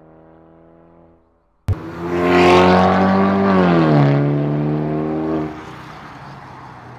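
VinFast Lux A 2.0's turbocharged four-cylinder engine through an aftermarket RES exhaust, first faint, then suddenly loud a little under two seconds in. The loud exhaust note is held steady, falls in pitch about four seconds in, and drops to a quieter note near the end.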